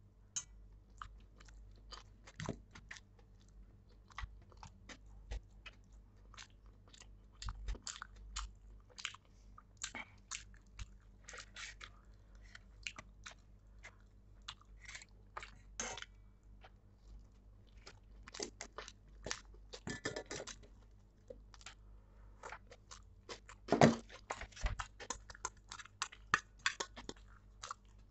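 Close-miked chewing and mouth sounds of a person eating pav bhaji, buttered bread rolls with thick vegetable curry: irregular wet smacks and sharp clicks. One louder knock comes about three quarters of the way through.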